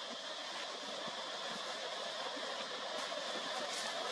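Steady outdoor background hiss with no distinct source standing out, and a couple of faint brief clicks near the end.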